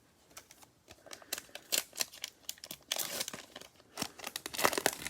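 Foil wrapper of a trading card pack crinkling and tearing as it is opened, a dense run of sharp rustles that starts about half a second in and grows louder.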